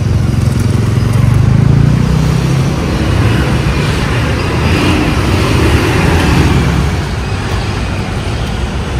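Road traffic: a steady loud din of passing vehicle engines and tyres, with a deeper engine rumble strongest in the first three seconds.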